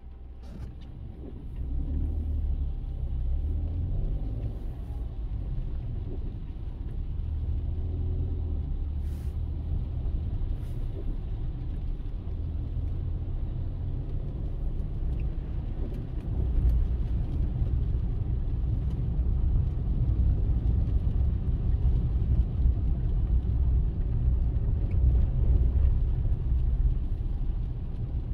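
Car on the move, heard through a dashcam: a steady low rumble of road and engine noise. It grows louder about a second and a half in and again about halfway through.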